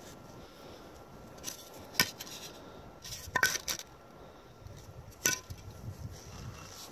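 Sharp clinks and knocks of a Hultafors spirit level being set down on and lifted off a concrete slab while the slab is levelled on its sand bed. One strike about two seconds in, a quick cluster around three and a half seconds, and a last one a little past five seconds.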